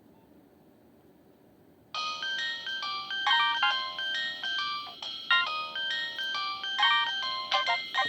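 Nokia 2660 mobile phone ringtone starting about two seconds in after a brief near-silent gap: a bright melody of quick, short stepped notes.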